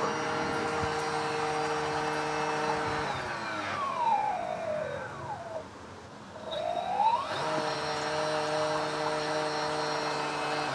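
Small electric motor driving a 3D-printed three-blade model-boat propeller (25 mm, 14 mm pitch) underwater, whining steadily at full throttle. About three seconds in it spins down to a stop; a second or so later it spins back up and runs steady again. This low-pitch propeller churns the water but gives almost no thrust.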